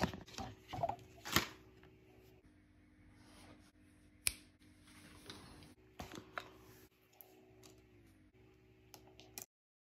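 Handling noise from an Apple Magic Keyboard folio as it is unfolded and an iPad is set on it: scattered light clicks and taps, with one sharp click about four seconds in. The sound cuts off suddenly just before the end.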